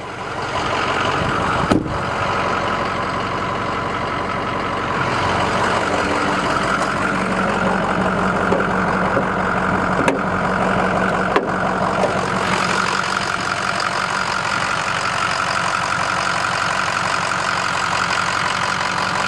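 Ford F-350's Power Stroke V8 diesel idling steadily, with one sharp knock about two seconds in.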